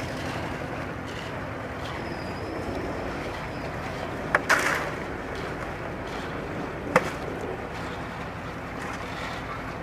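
A machine engine running steadily, with a few sharp knocks: two close together about four and a half seconds in and one about seven seconds in.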